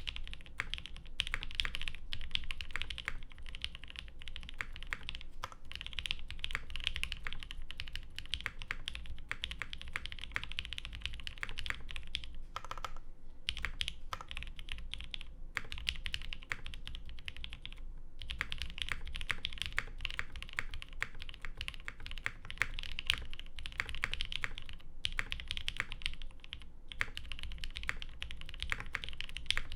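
Mechanical keyboard being typed on at a steady pace: a Mode SixtyFive with lubed 62 g Creamsicle switches on a carbon-fibre half-plate and GMK keycaps, keys clacking in quick runs. There are a couple of brief pauses in the middle.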